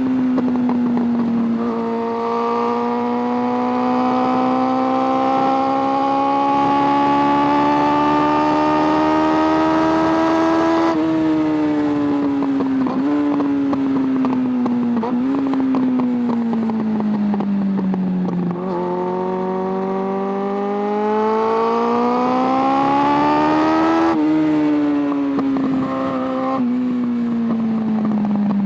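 Suzuki Bandit 600's carbureted four-cylinder engine on the move. It pulls up steadily through the revs, rolls off and slows with two brief jumps in pitch, then accelerates again and rolls off near the end.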